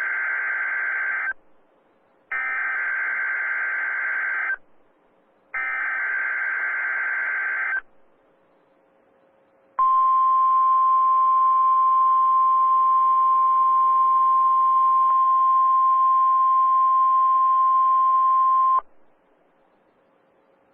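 NOAA Weather Radio Emergency Alert System weekly test over the air. First comes the end of one SAME digital header burst, then two more: harsh warbling data buzzes about two seconds long, each followed by a second of silence. After a short pause the steady 1050 Hz weather radio warning alarm tone sounds for about nine seconds and cuts off abruptly.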